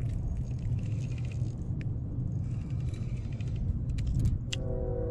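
Wind buffeting the microphone as a steady low rumble, with faint crunches and scrapes of ice-cleated boots shifting on rough ice and a short sharp click near the end.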